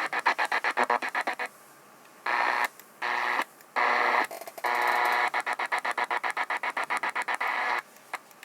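Sound from a Sony ICF-SW30 radio's speaker stuttering on and off many times a second, with hiss, and dropping out completely a few times before coming back in short bursts.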